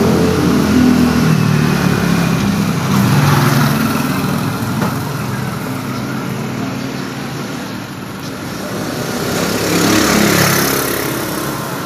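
Street traffic: a motor vehicle engine running close by, with a low hum that rises and falls and swells about ten seconds in, as a passing vehicle does.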